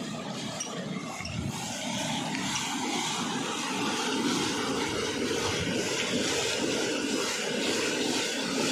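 Water pouring and splashing from the steel buckets of a Persian wheel into its trough, a steady gush that grows a little louder about two seconds in.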